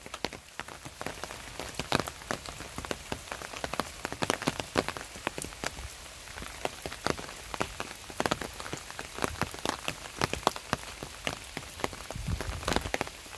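Rain falling: a steady hiss with many separate drops ticking sharply and irregularly, and a brief low rumble near the end.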